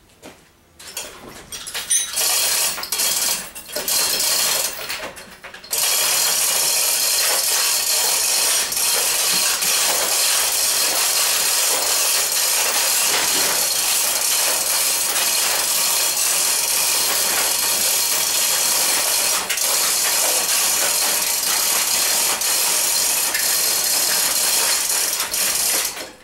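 Overhead chain hoist lifting an engine out of a car's engine bay: a few short clanks, then about six seconds in a steady mechanical chain rattle that runs on and cuts off suddenly near the end.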